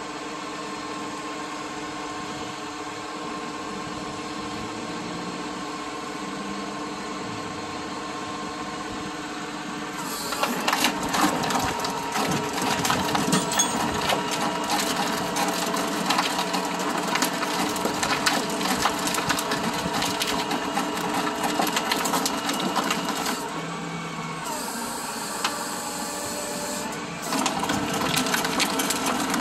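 Tow truck's hydraulics running with a steady hum. From about ten seconds in there is louder rattling, grinding and crunching as the wrecked car is pulled along on its broken front wheel toward the tilted flatbed, with a quieter stretch before it picks up again near the end.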